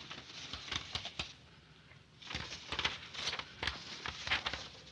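A sheet of letter paper rustling and crackling as it is handled and unfolded, in two bunches of short crisp rustles.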